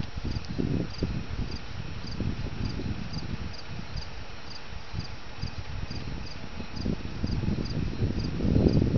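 Crickets chirping in a steady, even rhythm, about two to three chirps a second, over a steady high trill. A low rumbling noise runs underneath and swells near the end.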